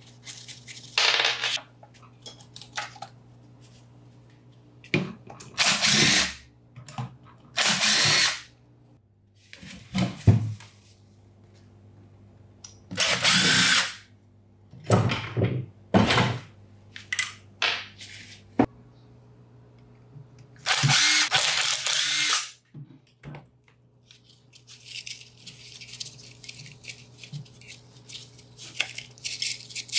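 Handheld electric power tool run in short bursts, about eight times, each lasting up to a second or so. A steady high hiss follows near the end.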